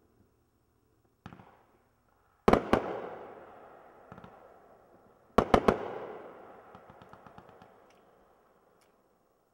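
Dominator "Iron Gorilla" firework going off. A softer pop comes about a second in. Two loud clusters of sharp bangs follow, about two and a half and five and a half seconds in, each trailing off in a long rolling echo with scattered crackling.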